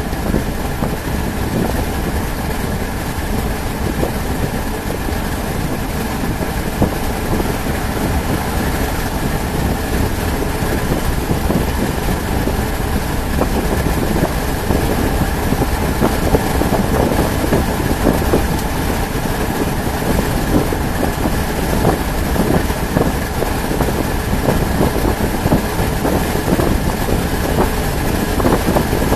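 Steady car engine and road noise running evenly throughout.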